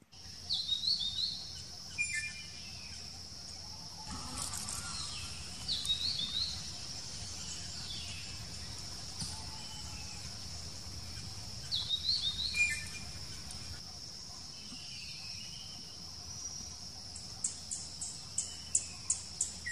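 Drongo calling: short bursts of quick, zigzagging whistled notes several seconds apart, then a run of sharp, rapid notes near the end. A steady high insect buzz runs behind.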